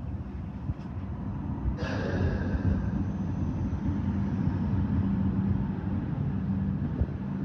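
Hong Kong Light Rail Phase V two-car train passing close by on street track: a steady low rumble of its running gear, with a sudden hiss about two seconds in that fades over a second or so.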